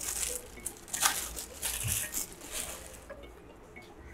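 Clear plastic wrap crinkling in several bursts as it is pulled off a plastic lens hood, dying away after about three seconds.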